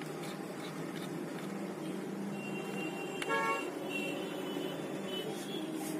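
Road traffic in the background, with several short vehicle horn toots from about two and a half seconds in.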